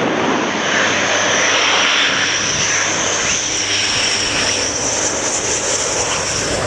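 F-15 fighter jet on final approach to land, its twin jet engines running loud and steady, a high whine riding over the noise of the exhaust.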